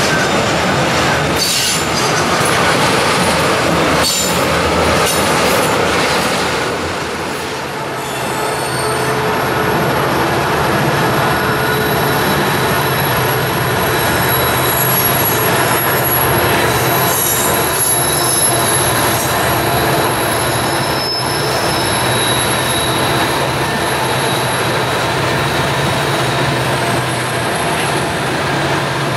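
Freight train's tank cars and covered hoppers rolling past with a steady rumble, the wheels knocking over rail joints a few times early on. High, steady wheel-flange squeals come and go as the cars grind around the curve.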